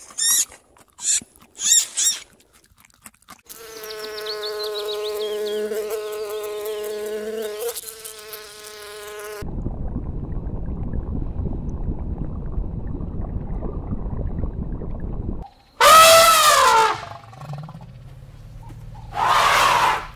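A run of separate animal sounds. Short high squeaks in the first two seconds; a steady buzzing hum for about six seconds; a low rushing underwater noise; then near the end a loud elephant trumpet that rises and falls in pitch, followed by a shorter second call.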